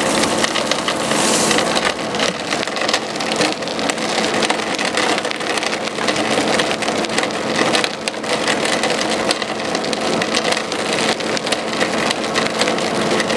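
Screw press running with whole raw pistachios in it: a dense, continuous crackling as the nut shells are cracked and crushed in the screw and pushed out at the discharge.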